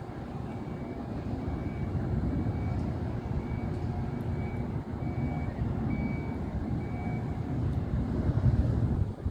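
Low rumble of vehicle engines and street traffic that swells near the end, with faint short high chirps every second or so.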